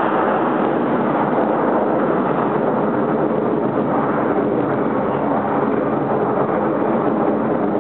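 Jet engines of a formation of display jets flying overhead: a steady, even rushing noise.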